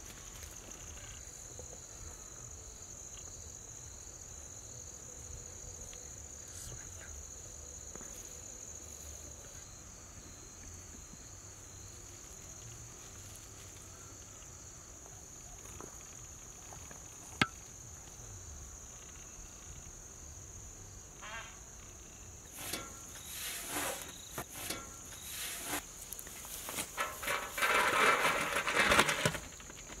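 A steady high-pitched drone runs throughout. From about two-thirds of the way in, a ladle scrapes and digs through cooked biryani rice in a large metal pot, in irregular strokes that are loudest near the end.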